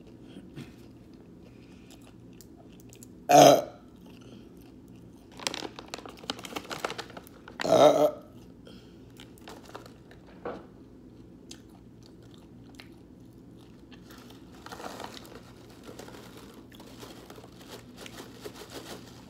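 Close-up chewing and crunching of a sandwich with a crunchy crust, in clusters of crackly bites. Two much louder short sounds stand out, about three and a half and eight seconds in.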